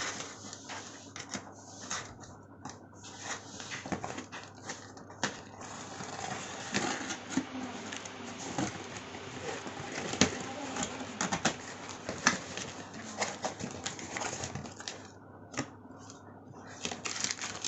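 Packaging being handled and opened by hand: scattered taps, clicks and knocks, with a longer stretch of rustling and scraping in the middle.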